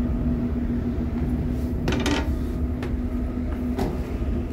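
Steady low rumble and hum of a ferry's machinery on the vehicle deck, with a short metallic clatter about two seconds in and a couple of sharp knocks after it.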